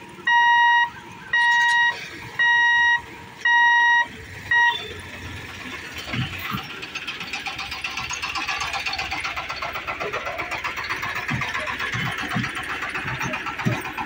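Level-crossing gate warning buzzer beeping in even pulses, about one a second, while the boom barrier rises; it stops about four and a half seconds in. After that comes a steady rattling and ticking, with a few low thumps as two-wheelers and an e-rickshaw bump over the rails.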